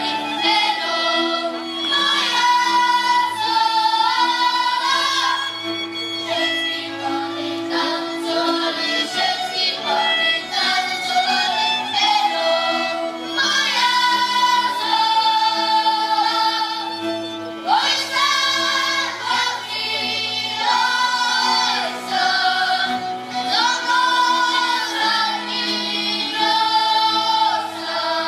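A children's folk ensemble singing a Moravian folk song together in phrases of a few seconds, over steady held low notes.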